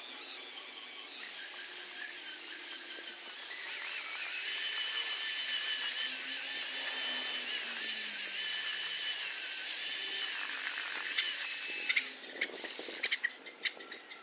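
Electric drill with a paddle mixer running in a tub of cement-based tile adhesive, mixing it with water: a steady high motor whine that grows stronger about four seconds in and stops about twelve seconds in. A few sharp knocks follow near the end.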